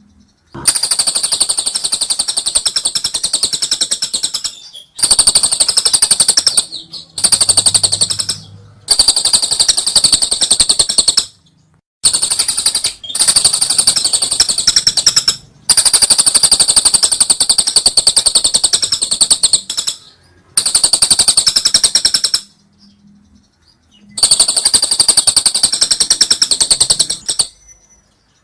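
Lovebird 'ngekek': long runs of very rapid, high, shrill chattering notes, each lasting a few seconds, separated by short, abrupt pauses.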